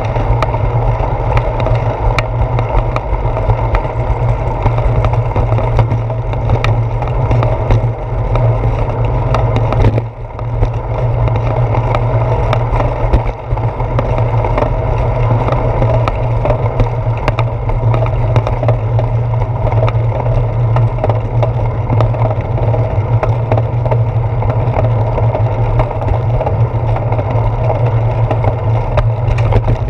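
Bicycle rolling fast along a concrete sidewalk, heard through a handlebar-mounted GoPro: a steady low rumble and wind noise, with frequent small knocks from bumps and joints in the pavement. It dips briefly about a third of the way in.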